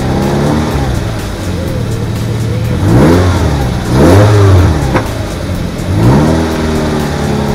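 Land Rover Freelander engine idling steadily and blipped three times, its note rising and falling about three, four and six seconds in.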